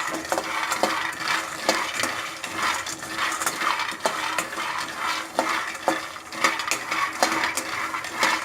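Peanuts roasting in a pan on medium flame, stirred continuously with a spatula: a steady rattling scrape of nuts against the pan with many small clicks.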